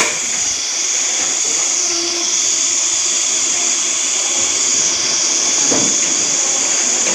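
A pot of soup at a rolling boil on an induction cooktop: a steady high hiss of steam and bubbling that swells and fades every couple of seconds, with a faint knock near the end.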